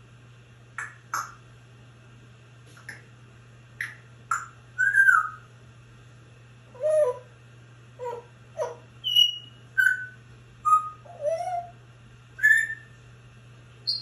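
African grey parrot making a string of short whistles, clicks and chirps with brief pauses between them, some of the whistles sliding down or rising and falling in pitch.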